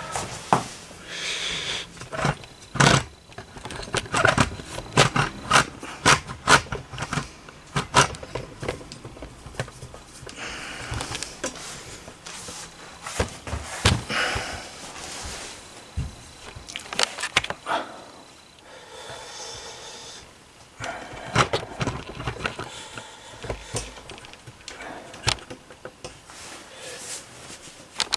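A long run of wooden knocks, clicks and some rubbing as grand piano parts, the keyboard and damper action, are handled and moved.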